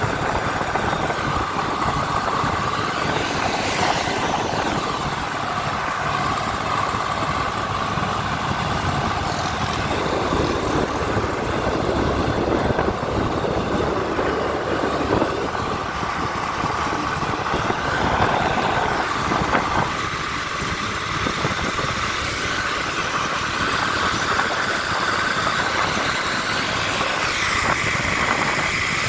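Steady engine and road noise from vehicles moving at highway speed, with a Swaraj 855 tractor pulling a loaded trolley close alongside. A few slow rises and falls in pitch.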